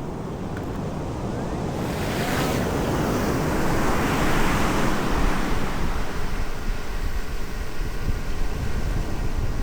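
Ocean surf: a wave builds and breaks in a swelling rush of noise, then settles into a lower rumble, with wind buffeting the microphone.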